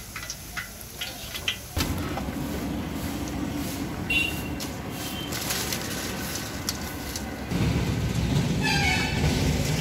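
Hot oil crackling as fafda strips deep-fry in a wok, with scattered short pops. After a cut, a steady rumbling background noise with a low hum takes over and grows louder near the end.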